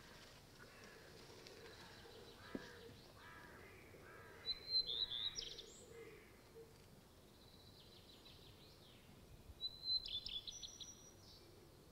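A songbird sings two short phrases of quick, high notes, about five seconds apart, over a faint steady outdoor background.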